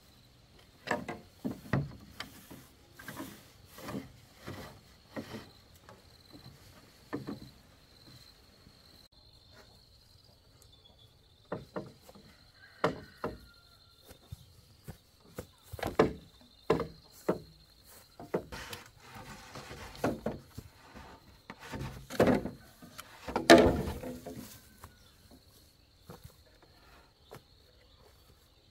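Bamboo knocking and clattering irregularly as it is handled, with one louder clatter late on, over a steady high-pitched insect drone.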